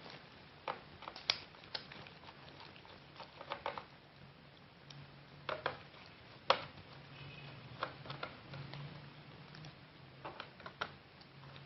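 Light, scattered clicks and taps of a small screwdriver and screws as the bottom-cover screws of an ASUS X453 laptop are undone, with a faint low hum coming and going.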